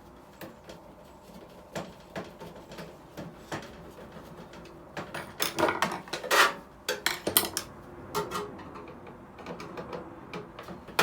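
Irregular metallic clinks, taps and rattles of hand tools and sheet-metal parts as a microwave oven is being taken apart, loudest in a cluster about halfway through.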